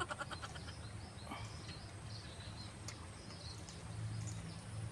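Faint outdoor background: scattered short bird chirps over a low steady hum.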